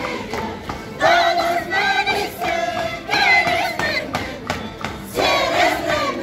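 A group of women singing a high-pitched Andean carnival song in chorus, in phrases that restart every second or so, over a steady hand-drum beat.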